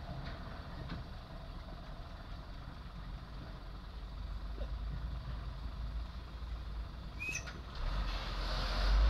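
Diesel engine of a loaded Hino dump truck running at low speed, a steady low rumble that grows louder near the end as the truck pulls forward. There is a brief high squeak about seven seconds in.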